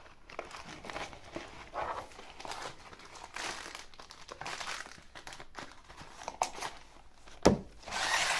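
Plastic packaging bag crinkling and rustling in fits and starts as a small white cardboard box and its contents are unpacked by hand. A sharp knock comes near the end, followed by louder rustling.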